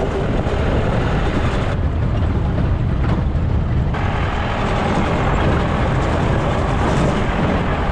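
Off-road jeep driving along a rough track: engine and tyre noise as a steady low rumble, with no pauses.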